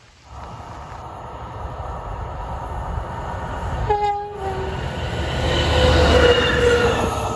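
A DB Cargo MZ diesel locomotive approaches with a rumble that keeps growing louder. It gives one short typhon horn blast about four seconds in, and the rumble is loudest a couple of seconds after the horn.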